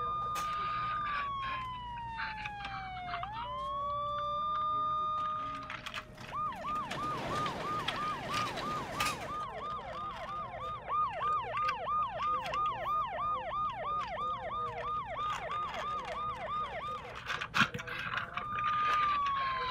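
Electronic police siren: two slow wails that rise, hold a high tone and slide down, then switching to a fast yelp rising and falling about two and a half times a second for around ten seconds, then back to a wail near the end. A few clicks and a brief rustling noise come in about a third of the way through.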